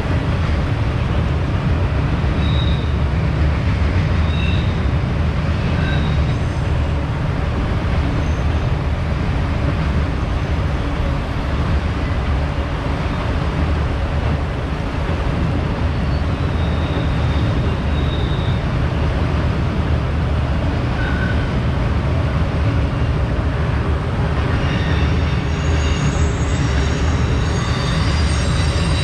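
Long freight train rolling past, a steady heavy rumble of wheels on rail, with short high-pitched squeals here and there and more of them near the end.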